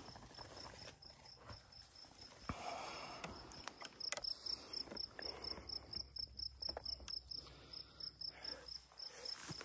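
An insect chirping in a steady, high-pitched pulse train, about five chirps a second, with a few faint rustles and clicks.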